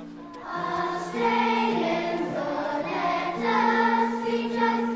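A choir singing slow, sustained chords, starting softly and growing louder about a second in.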